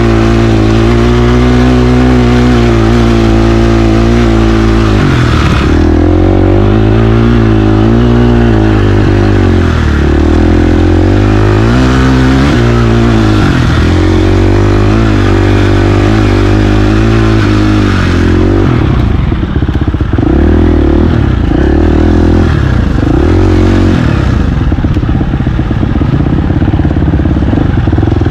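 KTM 350 XC-F single-cylinder four-stroke dirt bike engine under way, its revs rising and falling every couple of seconds as the throttle is worked. About two-thirds of the way through it drops to lower, choppier revs.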